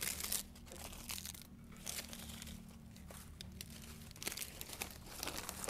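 Intermittent rustling and crinkling of something being handled, in several short bursts.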